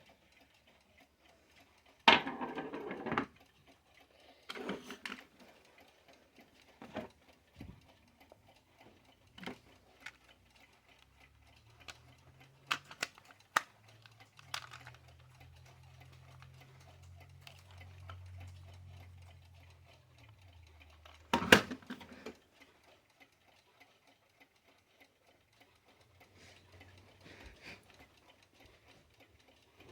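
Scattered, irregular clicks and knocks around a Westclox quartz travel alarm clock. There is a dense rattling burst about two seconds in, a sharp loud click about two-thirds of the way through, and a low hum for several seconds in the middle.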